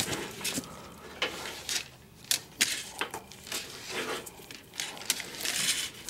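Irregular light clicks, taps and rustling, about a dozen over several seconds, from electrical wires and a PVC conduit being handled.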